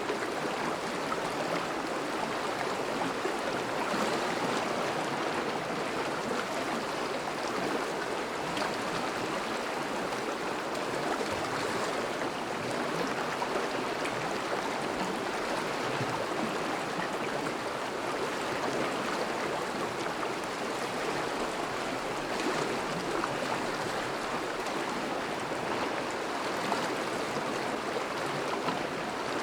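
A thawing winter river flowing steadily over and around ice, an even rushing and splashing of moving water.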